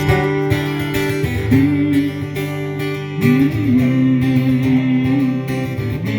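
Background music: strummed acoustic guitar under a melody of long held notes that slide between pitches.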